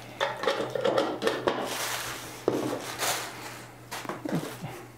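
Plastic packaging bag crinkling and rustling as it is pulled off the clear plastic bean hopper of a Baratza Sette 270Wi grinder, with small clicks of hard plastic and a light knock about halfway through as the hopper is set on a wooden tabletop.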